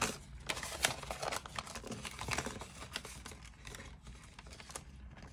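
Paper banknotes and a clear plastic cash envelope in a ring binder being handled: irregular rustling and crinkling with small clicks.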